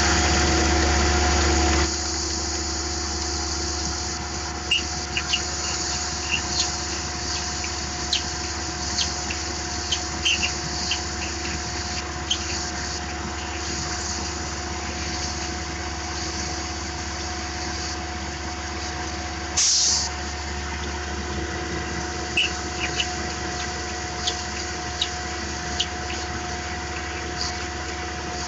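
Tormach PCNC 1100 CNC mill spindle running with a steady whine while drilling a 4.2 mm hole in aluminum, with coolant spraying. Short sharp ticks come at irregular intervals, and one louder burst of noise comes about twenty seconds in.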